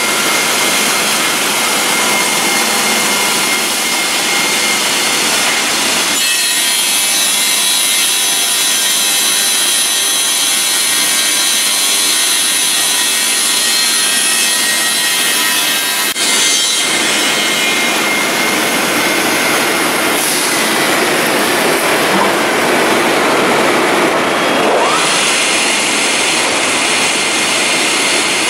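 Circular edge-trimming saws cutting magnesium oxide (MgO) boards on a production line: a loud, steady, hissing machine noise with a high whine. The sound changes abruptly about six seconds in, again past halfway, and near the end.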